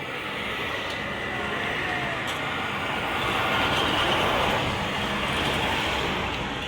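Steady toll-road traffic: tyre and engine noise from vehicles driving past, swelling to a peak about four seconds in as a vehicle passes close, then easing off.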